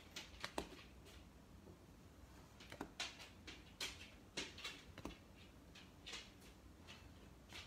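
Paper baseball cards being slid and flipped one after another in the hands: faint, short swishes and clicks of card stock at an uneven pace, bunched together in places.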